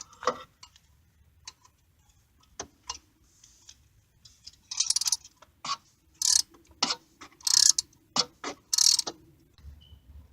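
Hand ratchet clicking as it tightens a thermostat housing bolt: a few scattered clicks and knocks, then four ratcheting strokes about a second and a half apart.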